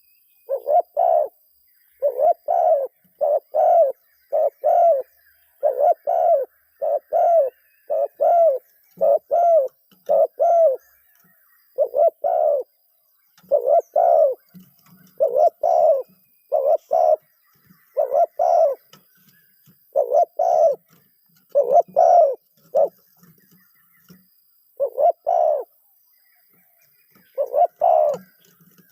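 Dove cooing over and over in quick runs of short coos, mostly in pairs and threes with brief pauses between runs: a call-bird calling to wild doves.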